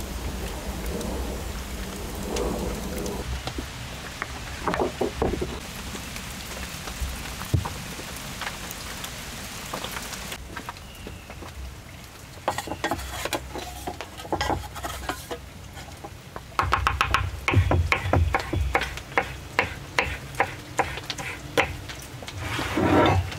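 Steady rain hiss for about the first ten seconds, then it drops away suddenly. Scattered sharp knocks and clicks follow, coming thicker near the end.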